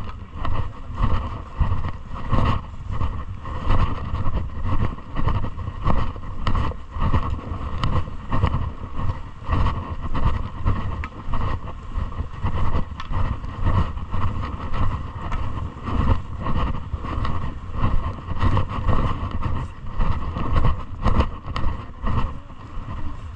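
Wind and handling rumble on a walking camera's microphone, swelling and dropping about once or twice a second with the walker's steps, over a steady higher hiss.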